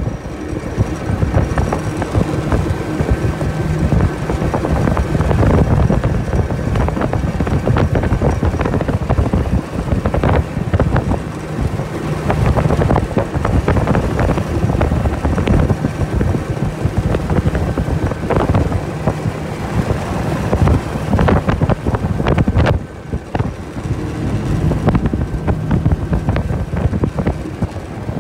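25 hp Johnson outboard motor running steadily under way, with the aluminium jon boat's hull knocking on the choppy water and wind buffeting the microphone.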